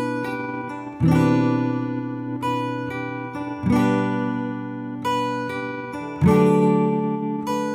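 Background music: an acoustic guitar strumming chords, a new strum about every two and a half seconds, each ringing out and fading.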